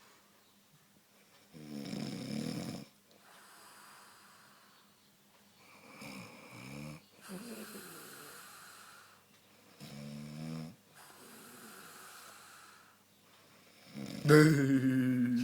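A woman snoring in her sleep: four rasping snores on the in-breath, about four seconds apart, with softer breathy out-breaths between them. The last snore, near the end, is much the loudest.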